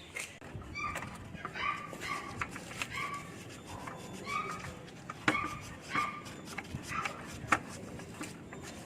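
A dog whimpering in a string of short, high whines, about one a second, with a few sharp clicks in between.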